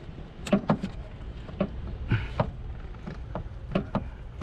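Irregular clicks and knocks, about ten in four seconds, from hands and tools working on the parts of a car's aftermarket cold air intake.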